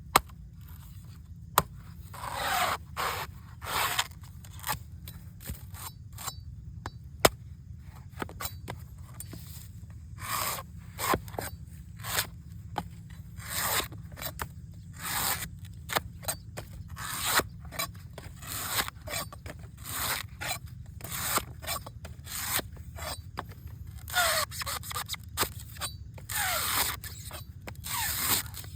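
Repeated scraping strokes of a blade working an old coconut, about one stroke a second, some with a short falling pitch. A few sharp clicks come in the first several seconds.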